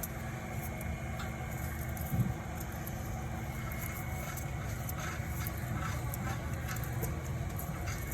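Toyota Corolla XLi engine idling steadily with a thin steady whine above the low running note: the abnormal noise it is brought in for. One short knock comes about two seconds in.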